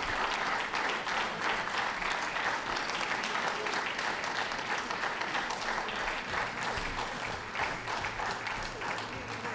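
Audience applauding, a dense patter of many hands clapping that dies away slowly toward the end.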